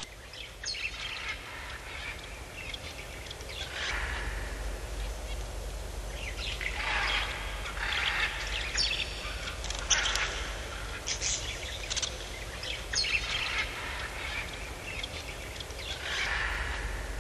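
Bird-like animal calls, short and spread out, several of them, over a steady low rumble that sets in a few seconds in.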